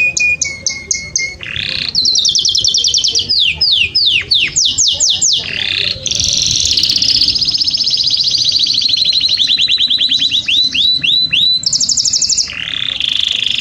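Domestic canary singing a loud, fast, varied song: rapid high trills alternating with runs of quick falling notes, the song switching from one trill to the next every second or two.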